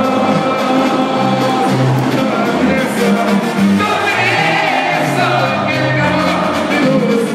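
Banda sinaloense playing live: brass over a low tuba bass line, with a man singing.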